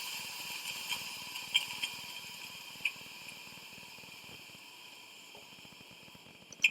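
Steam wand of a De'Longhi EC155M espresso machine hissing as the last of the steam is vented, fading steadily as the boiler pressure runs out. A few faint clicks, and a sharper one near the end.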